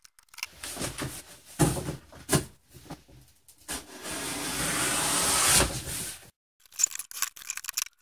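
A large sheet of cardboard is handled and trimmed: rustling and a few knocks, then one long cut through the cardboard about four seconds in that grows louder for two seconds before stopping.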